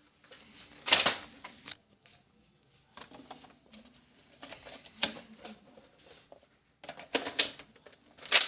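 Sharp hard-plastic clicks and knocks from toy foam-dart blasters being handled: one about a second in, another around five seconds, and a quick cluster near the end, with faint rustling between.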